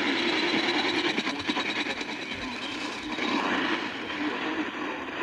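Weather radio receiver giving out steady static hiss with crackle, the sign of a weak, badly received signal.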